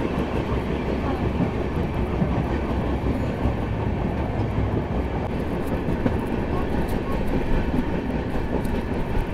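Passenger train running on the track: a steady rumble of wheels on rails with faint, irregular clicks.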